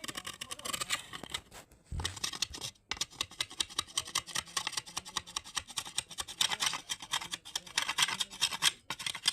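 Bamboo being scraped by hand with quick, repeated strokes. The strokes break off briefly about three seconds in, and a dull knock comes just before.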